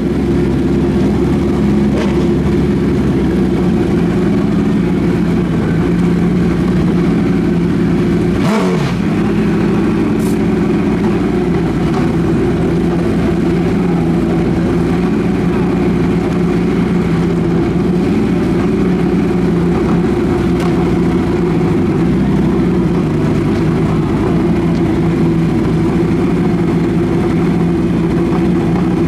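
Engines of two drag-racing motorcycles running steadily at idle on the starting line, waiting to launch.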